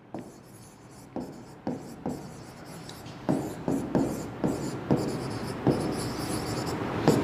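A pen writing by hand on an interactive smart board's screen: irregular taps and short scratching strokes as each letter of a phrase is formed.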